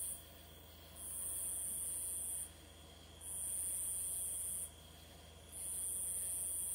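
Insects in the trees singing in a pulsed chorus: a high-pitched buzz that swells in, holds for about a second and a half and stops, repeating about every two seconds.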